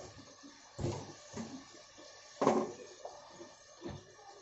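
Kitchen utensils and containers knocking and clattering in four or five short separate knocks, the loudest about halfway through, as dry spices are being got out.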